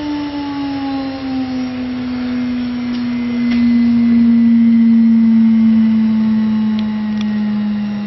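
Water-cooled spindle of an AKG6090 mini CNC router running while it engraves a metal plate: a steady high whine that sinks a little in pitch in the first second or so, then holds.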